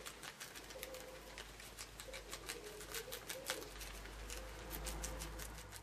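A guinea pig chewing lettuce from a hand: a quick, irregular run of small crisp crunching clicks, several a second.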